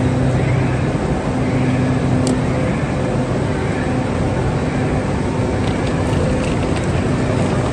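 A train standing at the platform, its engine running with a steady low hum under a dense wash of noise; a single sharp click about two seconds in.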